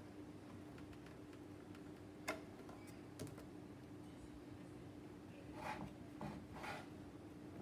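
Faint handling sounds as a DC barrel plug is pushed into a small Bluetooth amplifier board and a Makita 18 V battery adapter is handled. There is a sharp click about two seconds in, a lighter tick a second later, and two brief rustles near the end, over a faint steady hum.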